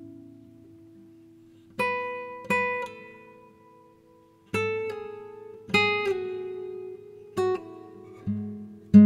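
Slow instrumental acoustic guitar music: plucked notes and chords ringing out one at a time, about a second apart, after a soft pause at the start.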